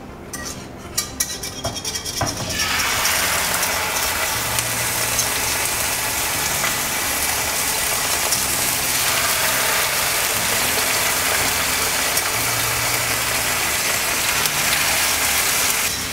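Beef cheeks searing in a hot frying pan of butter and oil: a few clicks and knocks as the meat goes in, then a loud, steady sizzle from about two and a half seconds in.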